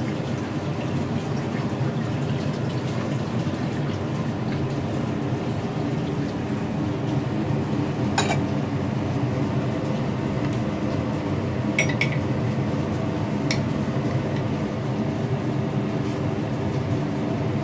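A steady mechanical hum runs throughout. A metal ladle and spoon clink sharply against glass jars a few times, about eight, twelve and thirteen and a half seconds in, while sugar is scooped out.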